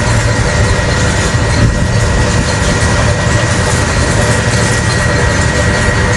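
Heavy construction machinery running steadily during the pulling-out of a steel pipe pile, a deep engine drone with a thin steady high whine over it.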